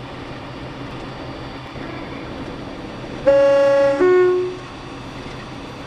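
Train horn sounding two notes, a high note then a lower one, each under a second long, over a steady rumble.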